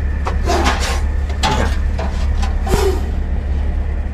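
A long stick scraping and knocking against a wooden cobra nest box, several short scrapes and rustles, over a steady low hum.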